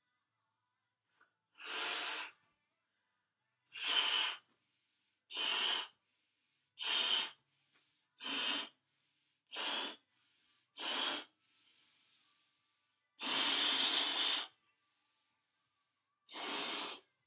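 A red Qualatex 11-inch Crystal latex balloon being blown up by mouth: nine puffs of breath pushed into it, each under a second, with one longer puff about two-thirds through, and faint inhales between.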